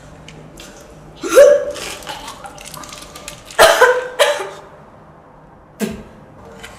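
A very drunk person hiccuping, four short voiced hiccups with the middle two close together.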